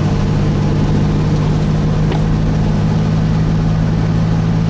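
Steady hum of a vehicle's engine and road noise heard from inside the cab, with a constant low drone.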